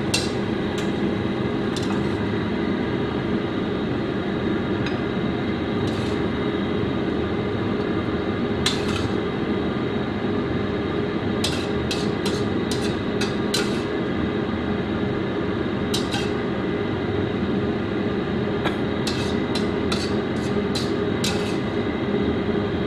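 Metal spatula scraping and clinking against a stainless steel wok while stir-frying and scooping the food out, the clinks coming singly and in quick clusters over a steady low hum.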